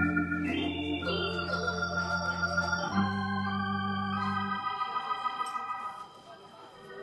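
Hammond-Suzuki XK3 organ played through a Leslie 3300 rotating speaker: sustained chords over low bass notes. There is a quick run of rising notes in the first second and chord changes along the way. The bass drops out past the middle, and the sound falls to a softer held chord near the end.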